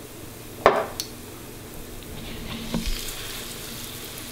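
Zucchini pancakes sizzling in hot oil in a nonstick frying pan, a steady frying hiss. A sharp knock less than a second in and a smaller click just after, then the sizzle grows louder around the middle with some utensil clatter as another spoonful of batter goes into the pan.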